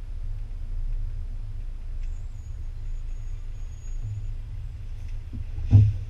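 DAF truck's diesel engine running at low revs, heard from inside the cab as the truck drives slowly over a gravel yard. Near the end comes a single sharp thump, the loudest sound.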